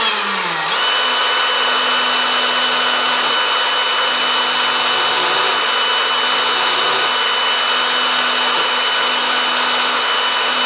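Electric drill running steadily, spinning a drywall nail that is being filed and tapered into a toy-car rivet head. Its pitch dips briefly in the first second, then it holds a steady hum and whine.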